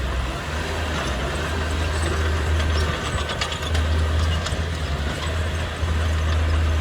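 Heavy earthmoving machine's diesel engine running, its low rumble rising and easing under changing load, with a rapid run of metallic clicks and clanks about three to four and a half seconds in.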